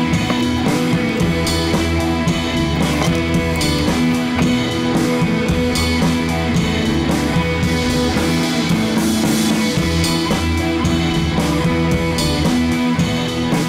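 Background rock music with guitar and drums at a steady beat.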